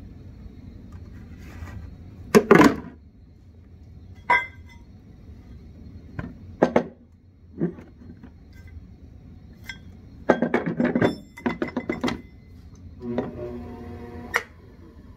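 Plastic splash pan and aluminium wheelhead of a pottery wheel being handled and set in place: a series of knocks and clatters, one with a brief metallic ring about four seconds in and a dense burst of clattering about ten seconds in, then a short rubbing sound near the end.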